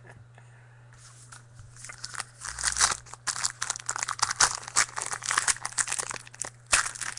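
Plastic-foil trading-card pack wrapper crinkling and tearing as it is opened by hand, dense crackling from about a second in with a short break near the end.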